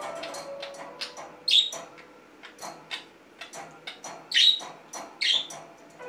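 Budgerigar giving three short, sharp chirps amid light clicking and rattling as it pushes a small plastic wheeled toy about on a wire cage top.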